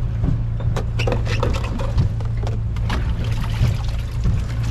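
Boat engine running with a steady low drone, with irregular sharp knocks over it from a child kicking a plastic tote.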